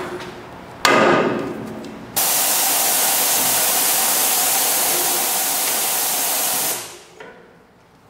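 A single hard strike on steel about a second in that rings briefly and fades. Then a loud, steady hiss of compressed air for about four and a half seconds that starts and cuts off abruptly.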